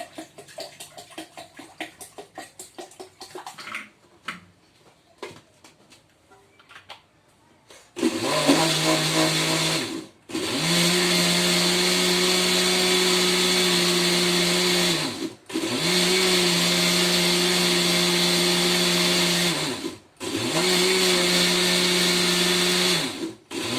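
Water poured into a blender jar for the first few seconds. After a short pause, an electric countertop blender runs in four long bursts of about four to five seconds each, with brief stops between, blending lemon peels with sugar and water.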